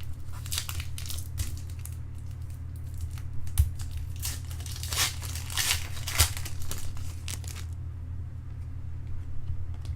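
Trading card pack wrapper being torn open and crinkled, in a run of irregular crackles that dies away about 8 seconds in. A steady low hum runs underneath.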